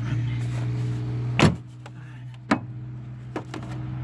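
Hard plastic engine cover from a 2.4-litre Dual VVT engine being lifted off and handled in the engine bay: a sharp plastic knock about a second and a half in, another about a second later, then a few light clicks. A steady low hum runs underneath and weakens after the first knock.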